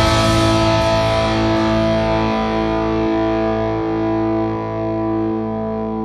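Background music: a single held chord that slowly fades, with a soft beat about every three-quarters of a second.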